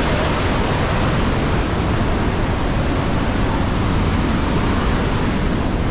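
The Rhine Falls waterfall: a loud, steady rush of falling water.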